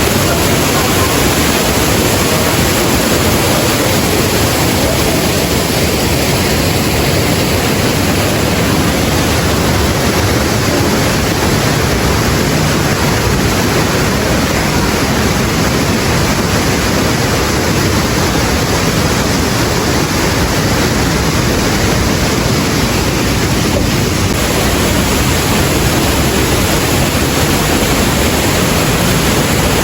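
Loud, steady rush of Suwat waterfall's falling water, heard close up.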